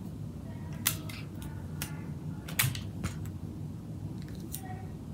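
A handful of sharp clicks and crackles from craft materials being handled, the loudest about a second in and again past halfway, over a steady low hum.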